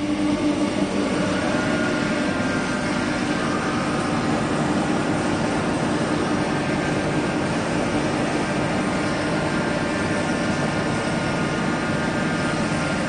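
16K20F3 CNC lathe running with its spindle and chuck turning: a steady mechanical hum with an even whine over it.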